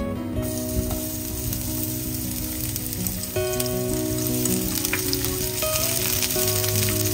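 Food frying in hot oil in a pan, a steady sizzle that starts about half a second in.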